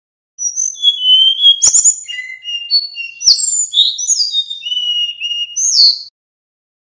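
Male Sikatan Bambu (a blue flycatcher) singing a run of clear, high whistled notes that slide up and down in pitch, for about five and a half seconds. Two sharp clicks come in the first half.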